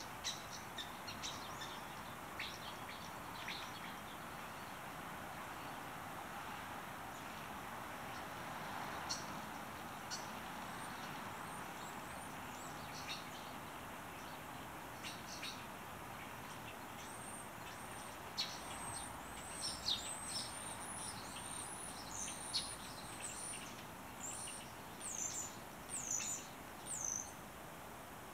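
Small birds calling in a winter dawn chorus: scattered high, thin chirps that thicken in the last third into a quick run of high calls, over a steady background hiss.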